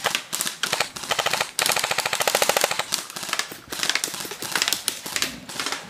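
Airsoft guns firing on full auto in repeated bursts of rapid, evenly spaced shots, the longest burst running about a second and a half near the middle.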